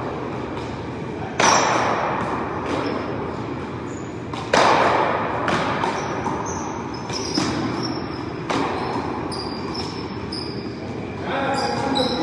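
Paddleball being hit back and forth: sharp smacks of the ball off wooden paddles and the concrete front wall, echoing in a large hall, several hits a second or more apart with the loudest about a second and a half in and again about four and a half seconds in.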